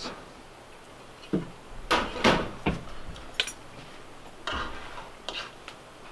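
Cutlery and dishes clinking during a meal: a handful of scattered light knocks and clinks of forks and knives on plates, some with a brief ring.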